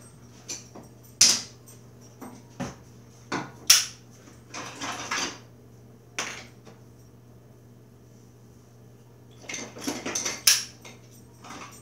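Irregular plastic knocks and clatters as a gallon jug of glue is tipped and worked over a small plastic cup to coax the glue out; sharp strikes come in clusters, with a lull in the middle and a last flurry near the end.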